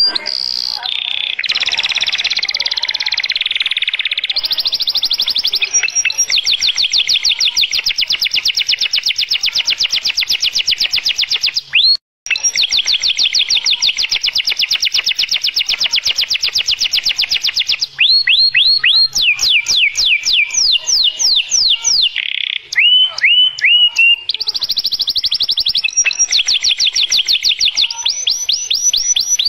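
Domestic canary singing: long rolls of rapid, evenly repeated high notes, each held for several seconds. Past the middle come slower sweeping whistles and a few dropping notes, then fast rolls again. A brief break comes about 12 s in.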